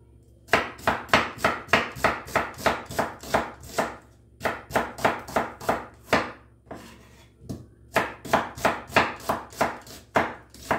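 Kitchen knife chopping a large onion on a wooden cutting board: quick, even strikes about four a second, in three runs with short pauses about four and six seconds in.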